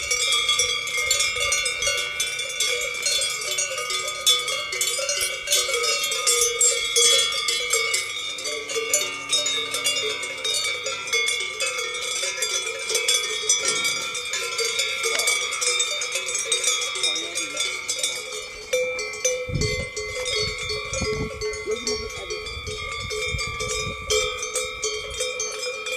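Cowbells on grazing cows clanking and ringing irregularly, with a low rumbling noise in the second half.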